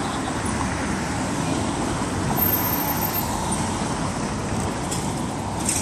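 Steady road traffic noise at a bus stop: motor vehicles running and passing, with a brief faint clatter near the end.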